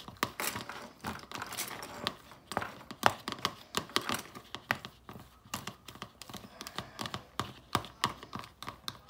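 Fork mashing hard-boiled egg yolks in a bowl: quick, irregular clicks and taps of the tines against the bowl.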